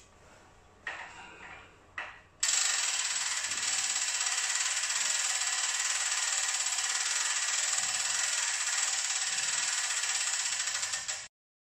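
Hand-cranked cable winch on a tripod being wound, its ratchet mechanism clicking in a fast, steady run that starts suddenly about two seconds in and cuts off near the end. A couple of light knocks come before it.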